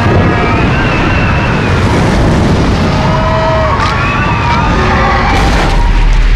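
A loud, continuous rumbling din of animated chaos sound effects, with wavering high tones gliding up and down over it and a few sharp cracks.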